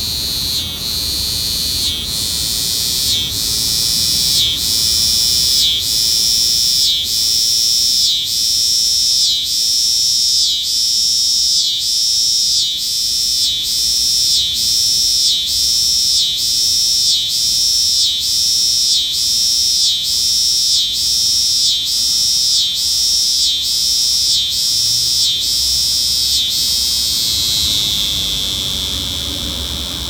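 A cicada singing close up: a loud, high-pitched buzz that pulses about once a second, its pitch stepping up a few seconds in, then dropping and winding down near the end.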